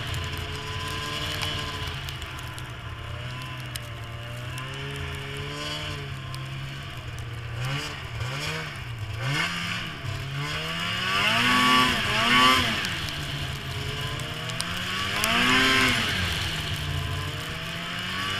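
Snowmobile engine running under way, its pitch rising and falling with the throttle: a few quick revs up and down partway through, then two longer, louder revs.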